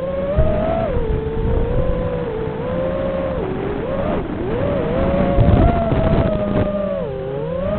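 FPV quadcopter's electric motors whining, the pitch rising and falling with throttle changes, with wind buffeting the microphone underneath.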